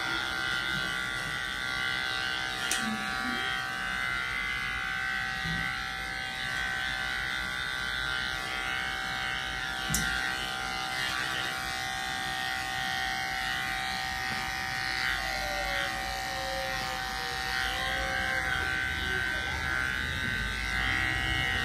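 Corded electric pet clipper running with a steady buzz as it shaves through a Persian cat's matted white coat. Two short clicks are heard, one about three seconds in and one about ten seconds in.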